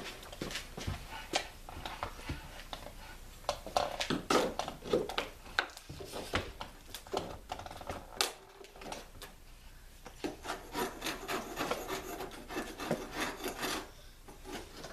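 Hand scraper scraping flaking old red paint from the wooden hull of a cedar plank canoe, in short irregular strokes, with a quicker run of small strokes in the latter part.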